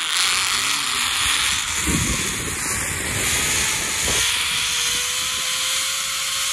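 Zip-line trolley running along the steel cable, with wind rushing over a handheld phone's microphone: a loud, steady hiss. A faint, steady whine joins about four seconds in.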